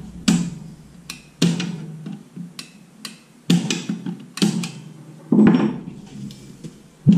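About a dozen sharp metallic clicks and clanks, irregularly spaced, as a brake adjusting tool turns the star-wheel adjuster of a drum brake another notch or two to set light shoe drag, and the steel brake parts and tools are handled.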